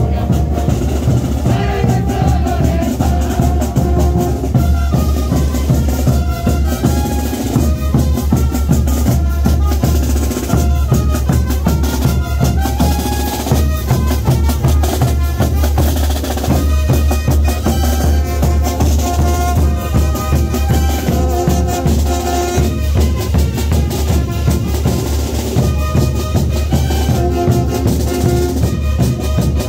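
Band playing a tinku dance tune: bass drums and snare beat steadily under a stepping melody line.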